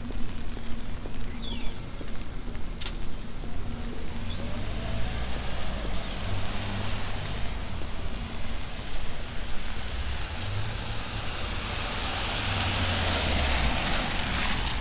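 Car tyres hissing on a rain-wet street as a vehicle passes, the hiss swelling to its loudest near the end, over a steady low rumble.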